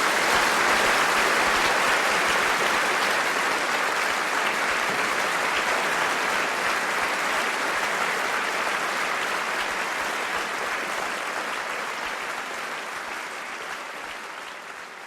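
Applause: dense, steady clapping that slowly fades out.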